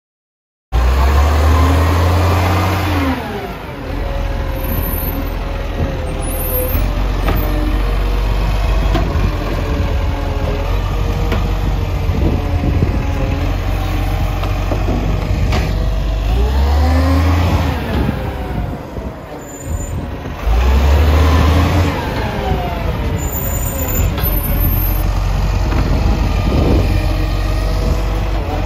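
Recycling garbage truck's diesel engine running loud, cutting in suddenly just under a second in, then revving up and falling back three times.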